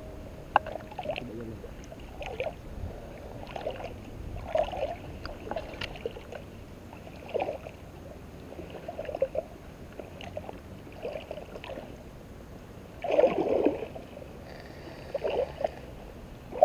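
Wading through shallow, weedy marsh water: irregular sloshing splashes with each stride, about one a second, with the loudest splash about thirteen seconds in.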